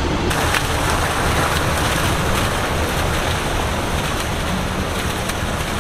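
Fountain jets splashing into a pool, a steady rushing noise, with wind rumbling on the microphone.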